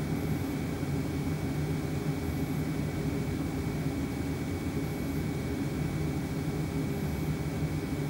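Steady hum and rushing air of the cabin heating running in a VW Sharan, with the D3WZ diesel auxiliary water heater working as a parking heater. A faint steady high whine sits over it.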